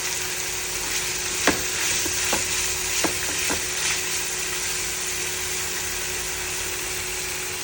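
Sliced chicken breast sizzling in hot oil in a pan, with a cooking utensil stirring it and clinking against the pan a few times in the first half.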